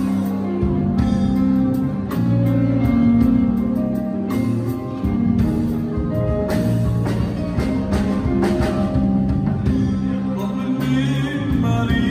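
Live band playing an Assyrian song: electronic keyboard, electric bass and drum kit, with a man singing at times.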